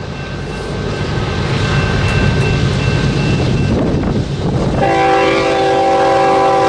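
Diesel freight locomotives rumbling as they approach, growing louder, then about five seconds in a locomotive air horn sounds a long, steady multi-note chord.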